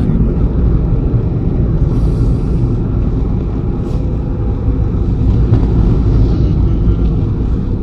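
Steady low rumble of a moving car heard from inside the cabin: engine and tyre noise on a wet road, with a brief hiss about two seconds in.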